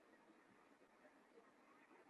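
Near silence: a pause between words of a recorded lecture, with only faint room tone.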